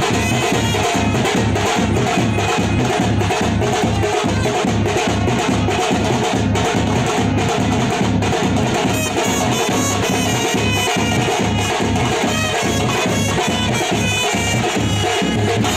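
Background music with a steady percussive beat and brass-like melody.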